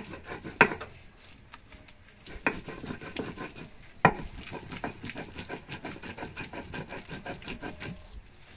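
Chile being ground on a stone metate with the mano, stone scraping over stone: a few sharp knocks, then a steady run of grinding strokes, about three or four a second, from about four seconds in.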